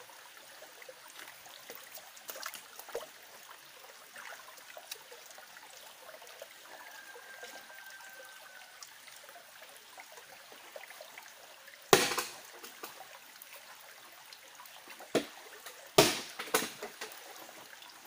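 Small stream trickling steadily, with a few sudden sharp sounds about twelve seconds in and again near the end.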